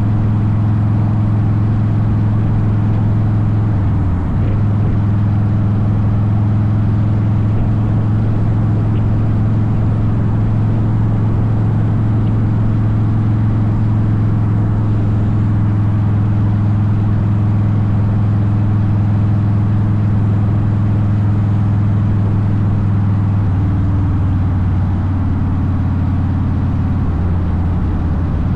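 Harley-Davidson Softail Deuce V-twin with Vance & Hines pipes running at a steady cruise. There is a brief dip about four seconds in, and the engine note settles a little lower near the end.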